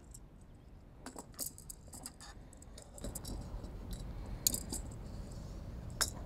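Scattered small metallic clicks and clinks as a metal stanchion lead block is handled and fitted onto a lifeline stanchion, with two sharper clicks in the second half.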